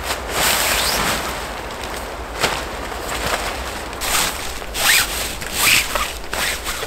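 A tarp rustling as it is handled and laid down, with several short, sharper swishes in the second half as a cord is pulled through the hands.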